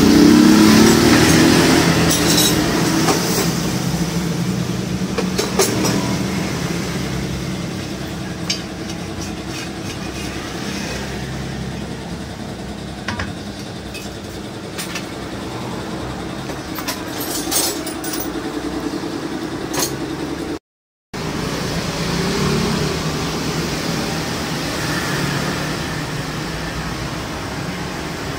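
Tyre-changer machine and tyre work: a steady mechanical hum that swells with a glide in pitch in the first couple of seconds as the machine's pedal is pressed, with scattered sharp metallic clicks and knocks. The sound drops out completely for a moment about two-thirds of the way through.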